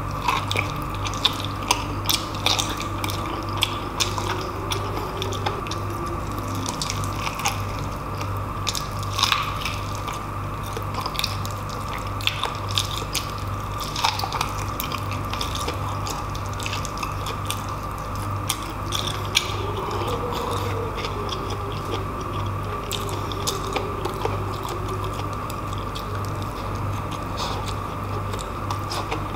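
A person eating braised pork hock (humba) with the fingers: wet chewing, biting and lip-smacking, many short clicks, over a steady background hum.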